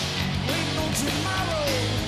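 Heavy rock band playing live: electric guitar, bass and drums, between sung lines, with a held note sliding down in pitch in the second half.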